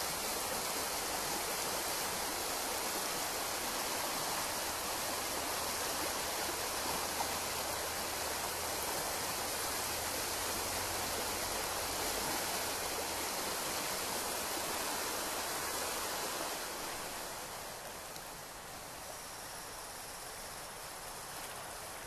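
Shallow forest stream running over a rocky bed: a steady rush and ripple of water. It falls off a little in level about three-quarters of the way through.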